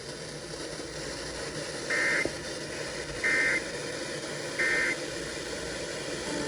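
Three short bursts of EAS/SAME digital data tones, a buzzy warble, spaced about a second apart over steady radio hiss. The bursts are the end-of-message (NNNN) code that closes a flash flood warning broadcast on NOAA Weather Radio.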